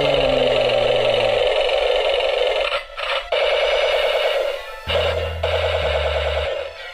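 Toy RC battle tank's built-in sound unit playing a loud, buzzy electronic tune with a rapid warble as it is switched on, with short breaks about three and five seconds in. Deep bass notes join from about five seconds in.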